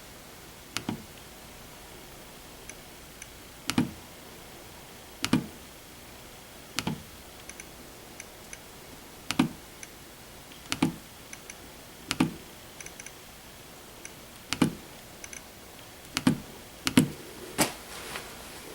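A Nest smart thermostat being clicked through its setup menus: sharp clicks about every second and a half, a few close pairs near the end, with fainter small ticks in between.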